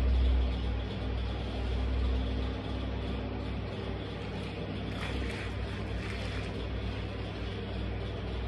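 Black Converse high-top sneakers treading on crushed orange pulp on a tile floor, with a few soft squelches about five and six seconds in, over a steady low rumble.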